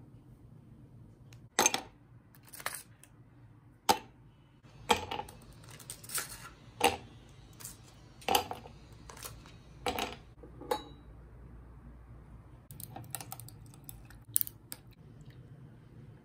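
Ice cubes dropped one at a time into a ceramic mug: a series of separate sharp clinks and knocks, roughly one a second, thinning out in the last few seconds.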